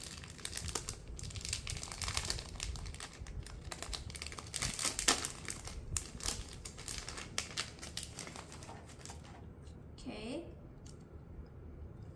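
Clear plastic bag crinkling and crackling densely as a puzzle cube is worked out of it by hand, stopping about nine and a half seconds in. A brief voice sound follows near the end.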